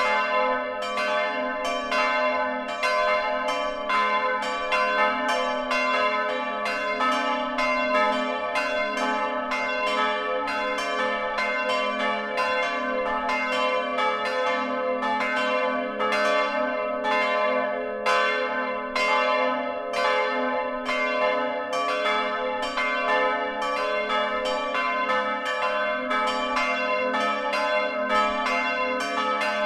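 Several church bells swinging and ringing together, heard close up inside the belfry: clapper strokes come about three a second in an overlapping pattern, with the bells' sustained tones ringing on beneath.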